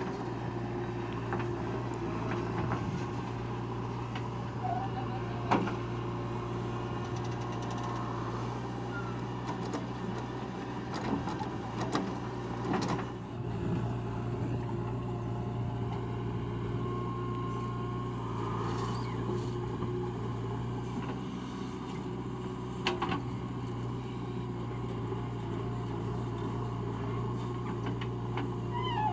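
Diesel engine of a JCB 3DX backhoe loader running at a steady speed, with a few sharp knocks, the loudest about five and a half seconds in.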